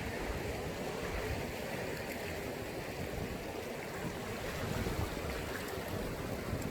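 Sea waves washing onto the shore in a steady, continuous rush.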